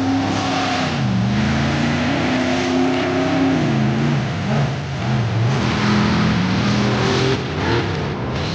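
Tube-chassis off-road buggy engines revving hard, the pitch climbing and dropping again and again as the rigs power through mud and up a dirt hill. Rushing noise swells over the engines at times.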